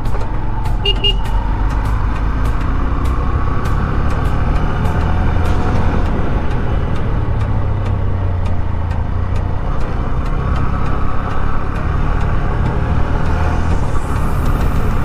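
Motorcycle being ridden at a steady speed, its engine running under a steady low wind rumble on the microphone, with frequent small clicks.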